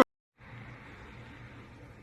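Faint steady hiss of room tone with a slight low hum, coming in after a moment of dead silence; an electronic keyboard tune cuts off abruptly right at the start.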